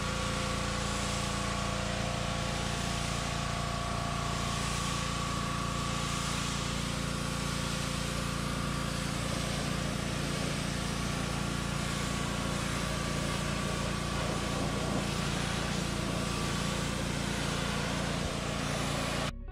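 Pressure washer running steadily, its jet hissing as it sprays a truck's front bumper and grille; the sound cuts off suddenly near the end.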